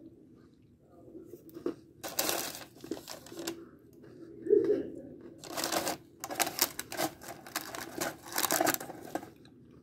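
Parchment paper rustling and crinkling as pieces of Oreo cookie bark are picked up and shifted about on it, in several bursts, with a brief low sound about halfway through.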